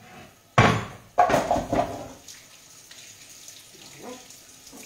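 Two sudden loud sounds in the first two seconds, then water running steadily from a kitchen tap into the sink as hands are rinsed under it.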